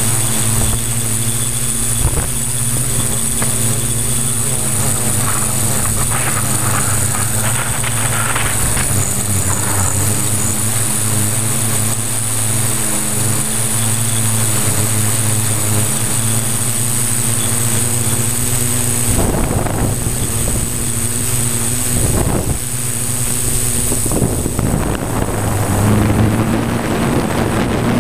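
Multirotor drone's electric motors and 15x5.5 propellers buzzing steadily in hover, heard up close from a camera on the frame: a low hum with a high whine above it. A few short rushes of noise come in the last third, and near the end the hum rises a little in pitch as the motors speed up.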